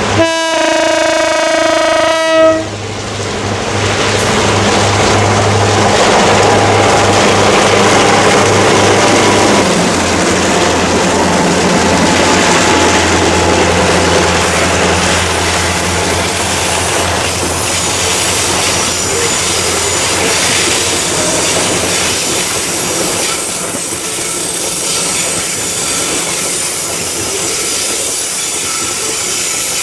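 Diesel-electric CC 202 locomotive sounds one horn blast of about two seconds. Then its engines run as a long train of loaded coal wagons rolls past. A thin high squeal from the wheels comes in during the later part.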